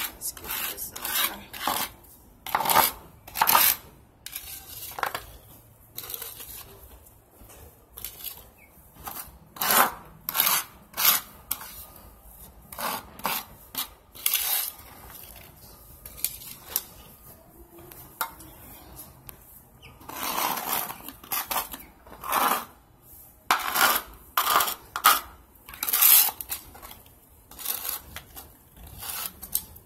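A bowl scraping across concrete to scoop up spilled chicken grit and feed, the grains rattling, in a series of short, irregular scrapes.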